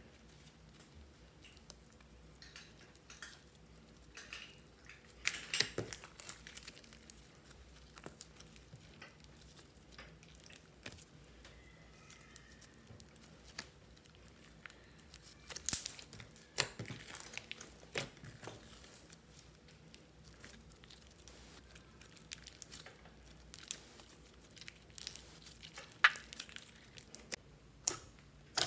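Fluffy white slime with broken lipstick pieces mixed in, being kneaded and stretched by hand: soft sticky crackling and squishing, with a few sharp pops scattered through.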